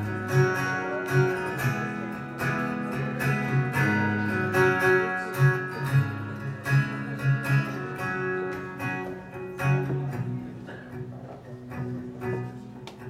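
Live band playing an instrumental break led by a strummed steel-string acoustic guitar over bass notes, without vocals. It grows quieter over the last few seconds.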